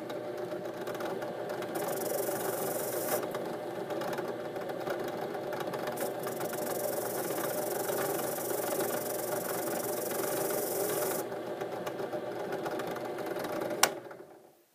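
Drill press running with a wire wheel brush fitted, a steady motor hum. From about two seconds in to about eleven seconds, a loud scrubbing hiss comes from a slotted saw-handle screw held against the spinning bristles to strip its tough old paint. Near the end there is a click and the motor winds down.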